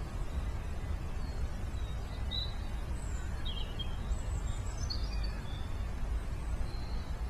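Outdoor ambience: a steady low rumble with a few short bird chirps in the middle.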